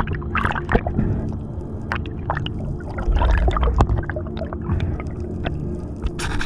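Water gurgling and splashing with scattered clicks over a steady low hum, typical of audio recorded in or at the water's surface.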